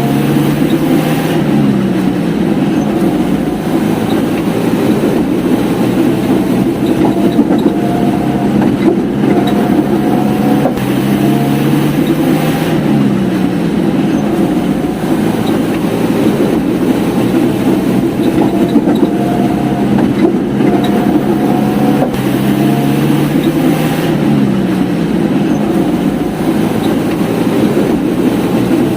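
Old Jeep engine running under way while driving, a steady low drone whose pitch steps down about every eleven seconds.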